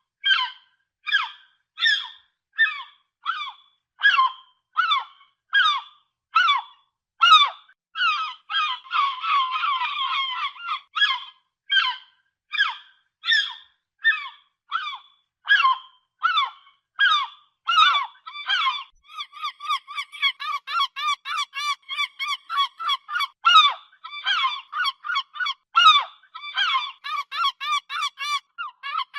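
Seagulls calling: a steady series of sharp single cries, about one and a half a second, with several birds calling over one another about nine seconds in. From about nineteen seconds the calls turn into a faster run of short repeated notes, about four a second.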